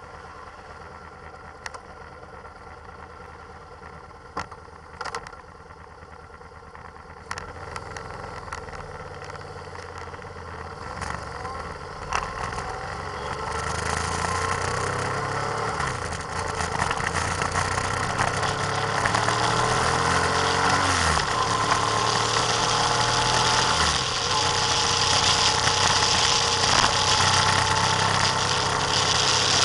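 Vehicle engine idling quietly, then pulling away and accelerating, its pitch rising and dropping several times with gear changes, while wind noise on the microphone grows with speed. A few sharp clicks sound in the quieter first seconds.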